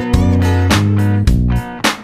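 Background music: a strummed guitar with a bass line and a steady beat.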